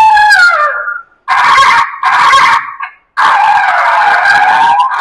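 12-tone electronic car horn on a school minibus playing a series of loud tones. First a falling glide, then two short blasts a little after a second in, then a longer wavering tone from about three seconds in.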